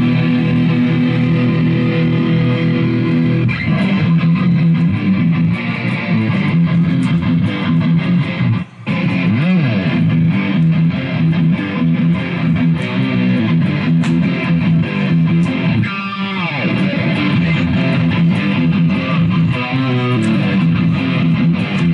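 Electric guitar played live through an amplifier with sustained notes. There is a brief break about nine seconds in, and a falling pitch slide around sixteen seconds in.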